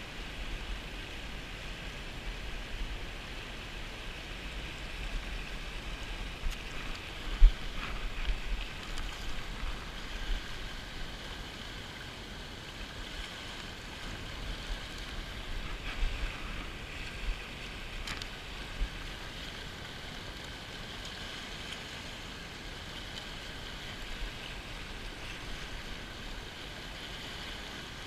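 Fast shallow river rushing over stones, a steady hiss of running water. Low rumbling bumps sit under it for the first two-thirds, with a sharp low thump about seven and a half seconds in and a few smaller knocks after it.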